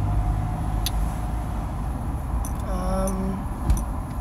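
Steady low rumble of a car's engine and road noise heard from inside the cabin while driving, with one sharp thump near the end.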